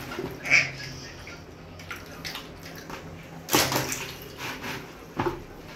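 Water balloons squeezed and popped in a plastic tub, with water splashing: sharp pops about half a second in and about three and a half seconds in, and a smaller one near the end.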